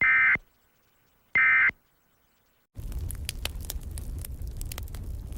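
Two short bursts of the Emergency Alert System's buzzy digital data tone, the end-of-message signal that closes an alert. Each lasts about a third of a second, and they come about a second and a half apart. About three seconds in, a quieter steady crackling over a low rumble starts.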